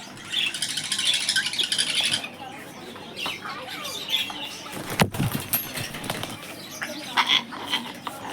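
A young grey parrot flapping its wings in a rapid flutter for about two seconds, then softer scattered short sounds and one sharp knock about five seconds in.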